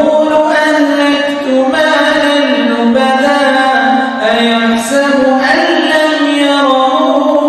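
A man reciting the Quran in a melodic, chanted style. Long held notes slide from pitch to pitch in unbroken phrases with brief breaks between them.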